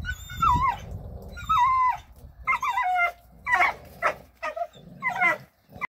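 Dogs whining and yipping excitedly while straining against a pulling rope: a run of about seven short, high calls, the first few falling in pitch.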